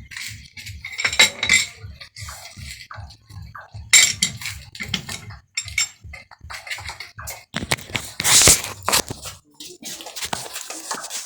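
Metal clinking and scraping in brass machining work, with sharp clicks and a louder scraping burst near the end, over a rhythmic low thumping from a machine that stops shortly before the end.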